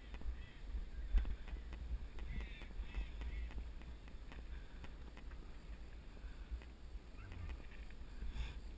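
Wind buffeting a GoPro action camera's microphone with a steady low rumble, over the rattle and crunch of a bicycle rolling on a gravel and dirt forest road.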